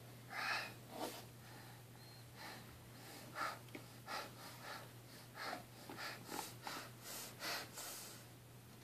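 A small child's short breathy huffs and snorts, repeated about once or twice a second.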